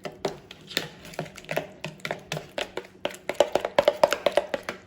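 A utensil stirring a thick Greek yogurt, garlic and lemon marinade in a bowl, with wet squishing and clicks against the bowl. The clicks are irregular at first, then come faster, about six a second, in the last couple of seconds.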